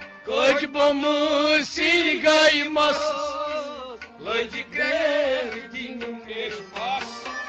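A man singing a Kashmiri Sufi song in long, ornamented phrases with a wavering voice, over a harmonium; the voice pauses briefly about four seconds in.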